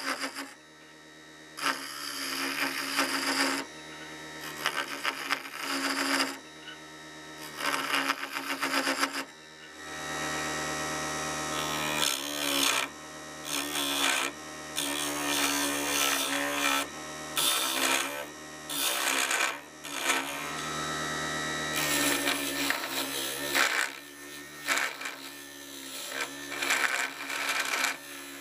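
Motor of a mini wood lathe (bead lathe) humming steadily while a hand-held steel turning tool cuts the spinning wooden handle blank, giving rasping scraping noise in repeated bursts of one to two seconds that start and stop as the tool is pressed in and lifted off.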